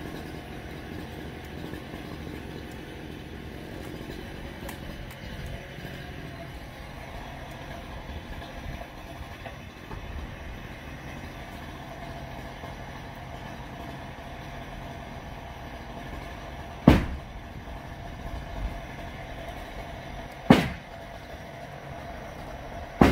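A heavy machine's engine running steadily at a garage demolition, with two loud crashing impacts in the second half, about three and a half seconds apart.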